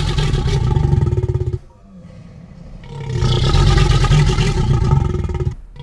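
Spinosaurus roar sound effect: a long, rough, low roar that breaks off about one and a half seconds in. A quieter low rumble follows, then a second long roar that fades near the end.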